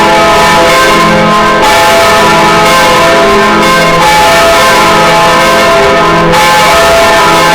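Swinging church bells ringing loudly. Strokes at several pitches overlap and ring on into one another without a pause.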